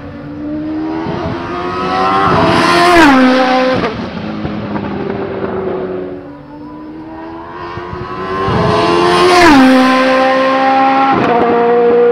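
Race car running flat out past the track twice, the engine note swelling to a peak about three seconds in and again about nine seconds in, its pitch dropping sharply at each pass.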